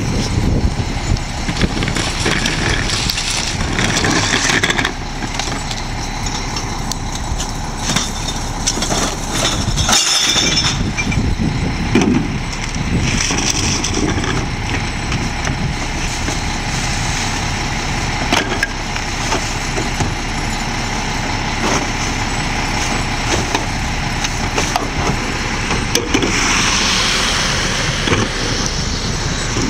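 Heil split-body rear-loading garbage truck running steadily at the curb, with scattered knocks and clatter as plastic trash cans are tipped into its hopper.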